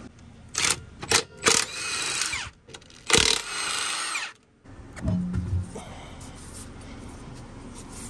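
Milwaukee M18 Fuel cordless impact wrench taking the lug nuts off a truck wheel: three short blips, then two longer runs, each winding down as it stops. A few low thumps follow about five seconds in.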